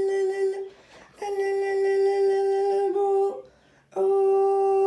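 Steady, buzzy alert tone held at one pitch, cut off twice for about half a second and resumed: the attention signal that opens an Emergency Alert System warning.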